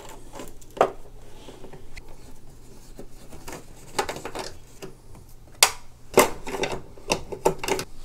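Irregular small clicks and taps of plastic wire nuts and wires being handled and twisted off at an electric water heater's wiring box. A few sharper clicks come in the second half.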